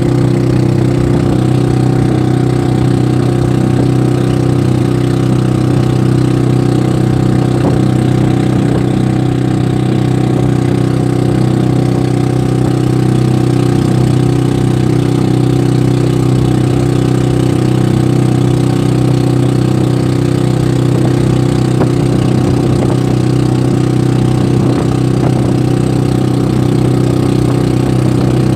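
Motorized outrigger boat (bangka) engine running at a steady, unchanging speed while under way: a loud, constant engine drone.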